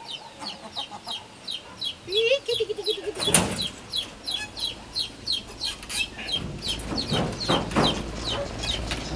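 Chickens: a hen clucks about two seconds in over a steady run of high, falling peeps, about four a second. There is a rustle about three seconds in and more brushing and rustling near the end.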